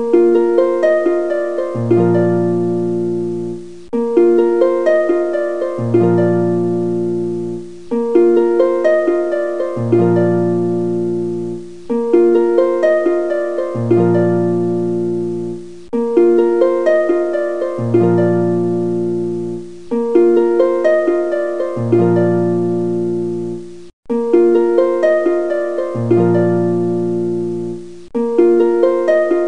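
Background instrumental music: a looping phrase of plucked notes in quick runs over a low bass note, repeating every few seconds.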